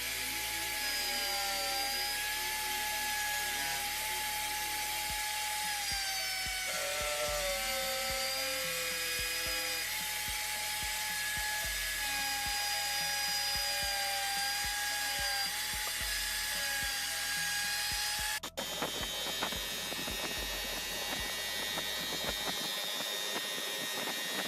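Power tool motor running with a steady whine that dips in pitch now and then, as if loaded by the work. About 18 seconds in, the sound breaks off and gives way to a noisier, crackling tool sound.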